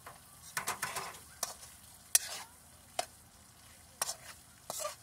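Metal spoon stirring beef heart and tomatoes in a wok, scraping and knocking against the pan about once a second, over a faint sizzle of the frying meat.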